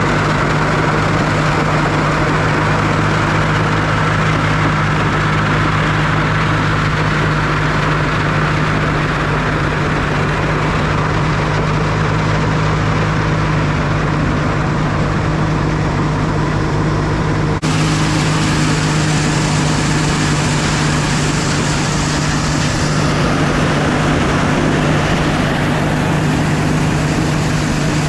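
Heavy farm machinery running steadily at a constant pitch with a strong low hum, typical of the engines working the corn silage harvest. About two-thirds of the way through the sound changes abruptly, then the machinery runs on much as before.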